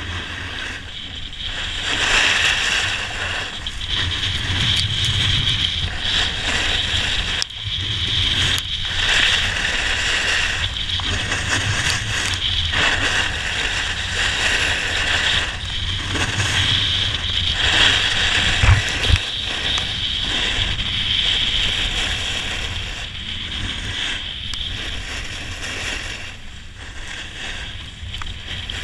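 Skis carving and scraping over groomed snow through a run of linked turns, the hiss swelling and dipping with each turn, over a low rumble of wind on the microphone.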